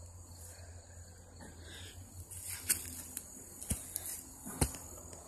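Footsteps on dry leaf litter and twigs, with a few sharp snaps and crunches through the second half, over a steady high insect buzz.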